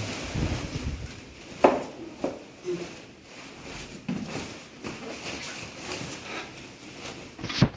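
Handling noise: rustling with a few sharp knocks and clicks, the loudest a little under two seconds in and another near the end.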